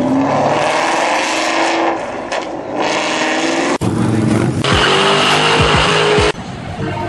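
Modified car engines revving and running, the pitch rising and falling, with the sound changing abruptly twice as one car gives way to another.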